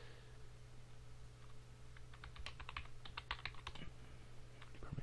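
Computer keyboard keystrokes: a quick run of faint key clicks typing a short command, over a steady low hum.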